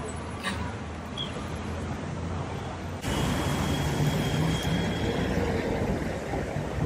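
City street traffic noise: a steady rumble of cars and passing vehicles. It jumps abruptly louder about three seconds in.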